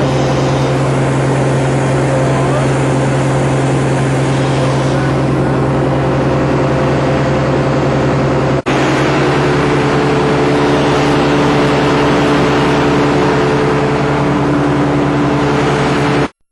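A large engine running steadily at a constant speed, a loud low drone. It breaks off for an instant about nine seconds in and cuts off suddenly near the end.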